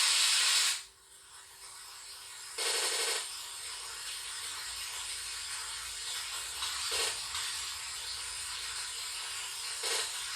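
Steady hiss of static noise, loud at first and dropping sharply about a second in, with a short louder burst of noise about three seconds in and two faint blips later.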